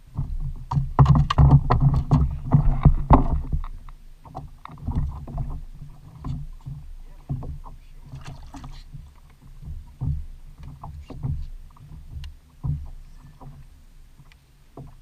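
Small waves slapping and sloshing against a plastic kayak hull, with scattered knocks and clicks from fishing gear being handled. The sloshing is heaviest for the first few seconds.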